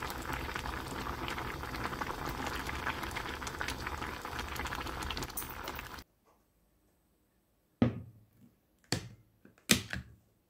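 Soft tofu stew bubbling at a boil in a pot on a gas stove. The sound cuts off about six seconds in, and then three sharp knocks follow as the pot is set down on a wooden trivet.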